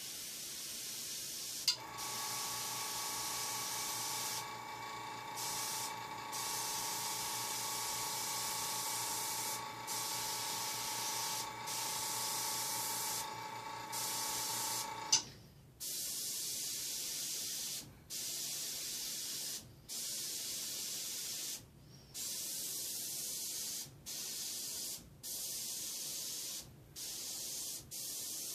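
Airbrush spraying: a steady hiss of air and paint, cut by short gaps where the trigger is let off, in strokes of a second or two during the second half. An air compressor runs with a steady hum from about two seconds in, switching on and off with a click about halfway.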